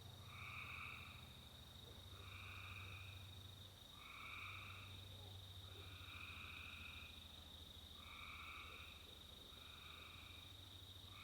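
A frog calling over and over, each call a short trill just under a second long, repeated about every two seconds. A faint steady high-pitched insect-like drone and a low hum run underneath.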